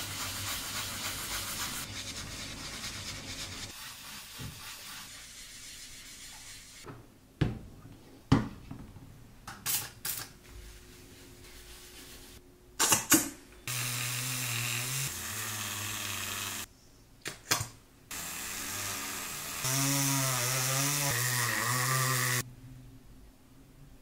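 A lens being rubbed on a sanding sponge for the first few seconds, then a few sharp clicks, then a small electric power tool running in two stretches of about three seconds each, its pitch changing in steps.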